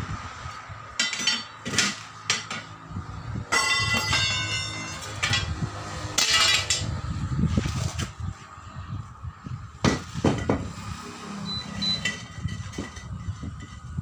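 Steel tyre lever and steel wheel rim clanking and clinking as a 7.50-16 truck tyre is pried off the rim: irregular sharp metal knocks that ring briefly, with a quick run of clanks about four seconds in.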